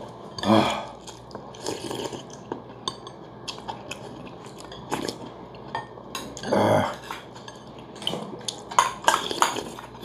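Metal spoons and chopsticks clinking against stainless-steel rice bowls and ceramic soup bowls while eating, in many short scattered clicks. A brief vocal sound comes about half a second in and again near seven seconds.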